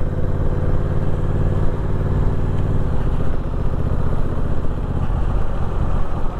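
Honda Rebel 1100's parallel-twin engine idling steadily while the motorcycle stands still.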